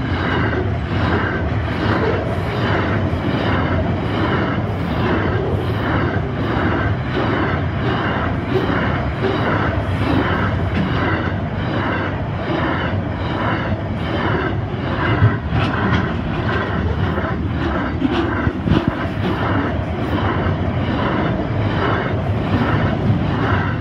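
Container wagons of a long freight train rolling past close by: steel wheels running on the rails with a rhythmic clatter about twice a second and a few sharper clanks in the second half.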